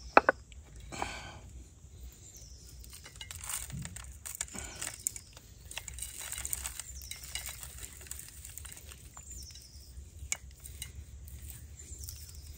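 Close handling sounds of raw pork being seasoned and threaded onto a wooden skewer over a stainless steel camp plate: scattered light clinks, taps and rustles, with one sharp click just after the start.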